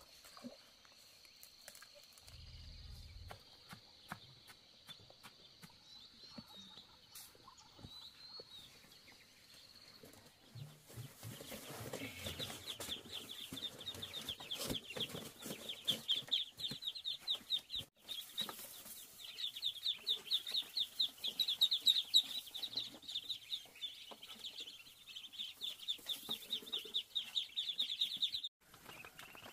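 A brood of ducklings peeping, a dense run of rapid high peeps that starts about a third of the way in and cuts off sharply just before the end. Before the peeping there are only faint outdoor sounds: a steady high whine and scattered light knocks.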